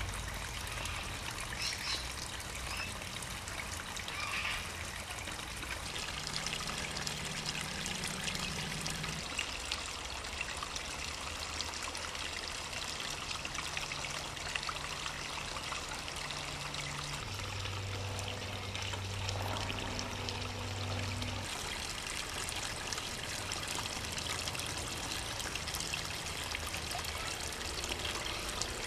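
Water from a small garden waterfall pouring and trickling steadily into a fishpond, a continuous splashing.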